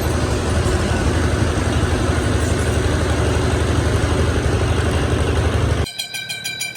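An engine runs steadily with a low rumble. Near the end it cuts off abruptly, replaced by a quieter sound with a quick, regular pulse and steady high tones.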